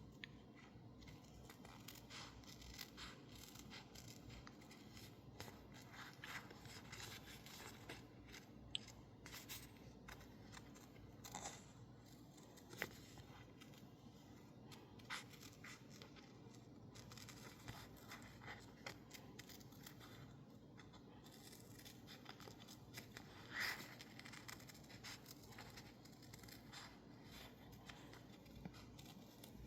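Scissors snipping through sticker label paper in short, irregular cuts, faint and close, with a louder snip about two-thirds of the way through.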